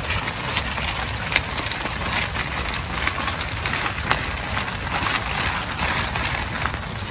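Heavy rain falling steadily, with many separate drops ticking sharply on a surface.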